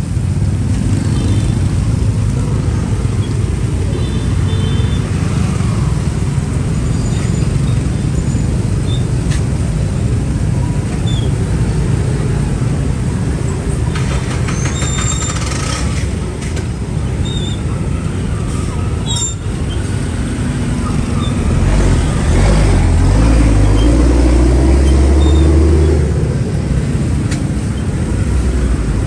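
Busy street traffic: a steady low rumble of passing vehicles. About 22 seconds in, a louder engine passes close for a few seconds.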